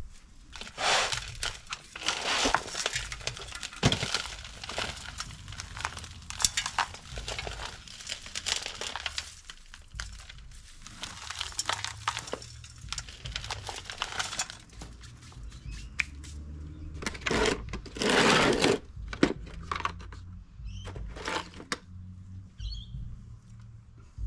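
Hands breaking apart the root ball of a Satsuki azalea: crumbly potting soil crackling and rustling, roots tearing loose, and clods falling onto a plastic saucer, in an irregular run of small cracks and clicks. A longer, louder stretch of rustling and crumbling comes about eighteen seconds in.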